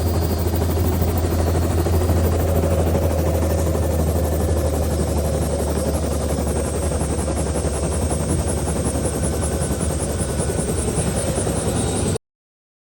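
Helicopter running steadily: a low drone with fast, even rotor-blade chop. It cuts off suddenly near the end.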